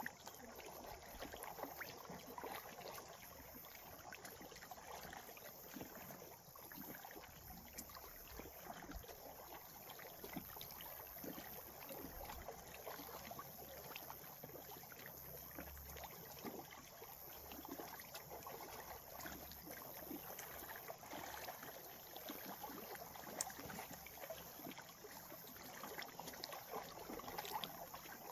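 Gentle water lapping and trickling, a faint steady wash full of small splashes.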